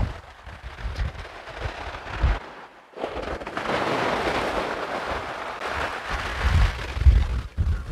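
Wind buffeting the camera microphone in gusts, over the sea washing on a shingle beach, the wash swelling for a few seconds in the middle.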